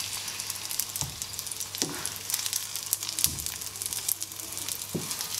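Chicken-stuffed wheat-flour patties shallow-frying in oil in a pan, sizzling with fine crackles. A few knocks come as a wooden spatula turns them over.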